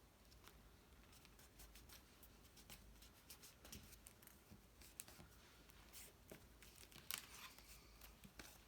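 Faint, scattered rustles and light taps of cardstock being handled, folded and pressed closed, with a few slightly sharper ticks in the middle and later part.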